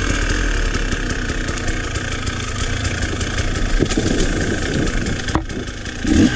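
KTM 300 two-stroke enduro motorcycle engine running at low, steady revs, with frequent light clicks and rattles. Near the end it revs up again in short blips.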